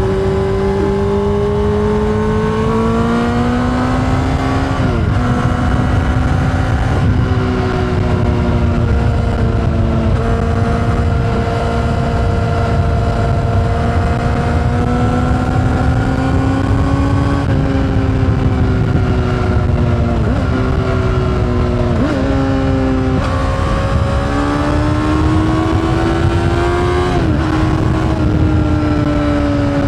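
Honda CBR600RR's inline-four with an Akrapovic exhaust, pulling through the gears under way. The engine note climbs, then drops sharply at each shift, about seven times, over a steady low rush of wind noise.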